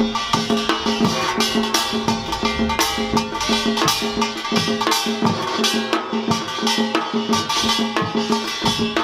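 Samul nori, Korean traditional percussion, played seated in fast, dense rhythm: the small kkwaenggwari gong clattering over drum strokes, with a large jing gong and a steady low hum.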